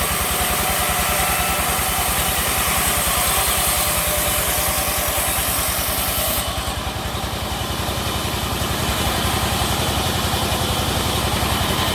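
Sawmill engine running steadily with a regular low throb. About halfway through, the hiss above it drops away abruptly.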